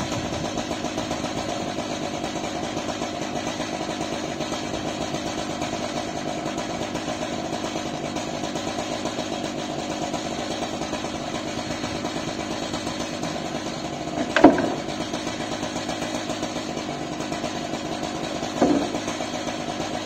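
Chainsaw of an Alaskan sawmill idling steadily, not cutting. Two short, louder sounds come near the end, about four seconds apart.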